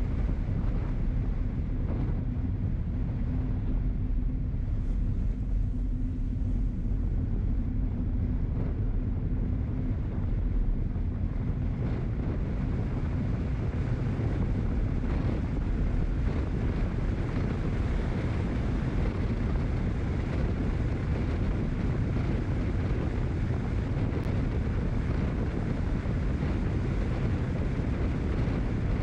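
Steady running noise of a vehicle on the move, with wind buffeting the microphone; a low steady hum fades out about twelve seconds in.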